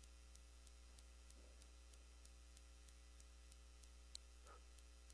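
Near silence: a steady low electrical hum with faint static and faint regular ticking, about three ticks a second, and one faint click about four seconds in.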